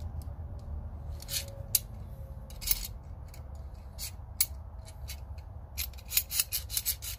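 Knipex pliers wrench being worked in the hand: a series of sharp metallic clicks, singly and in quick clusters, as its adjustable jaw is opened, closed and reset. A low steady hum runs underneath.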